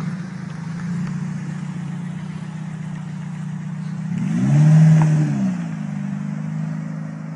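Car engine running steadily, then revved once about four seconds in, the pitch climbing and dropping back to a steady run.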